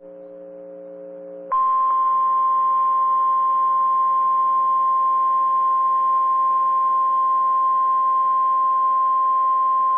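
Weather radio alert: a low steady receiver hum for about a second and a half, then the NOAA Weather Radio 1050 Hz warning alarm tone, one loud, steady high beep lasting about nine seconds, that signals a warning is about to be read.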